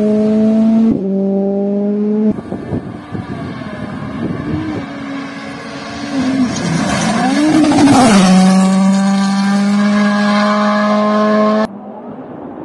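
Ford Puma Rally1 car's turbocharged four-cylinder engine at high revs, heard in several spliced passes. It holds steady high notes, and in the middle the revs dip and rise again through gear changes and lifts. The sound cuts off abruptly near the end, leaving only a quieter steady tone.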